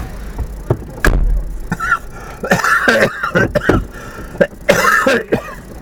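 A person coughing and clearing their throat close to the microphone, several harsh bursts in a row.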